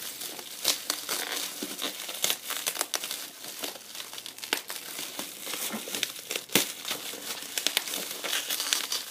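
Bubble wrap crinkling as it is handled and pulled off a boxed vinyl figure, with many irregular sharp crackles throughout.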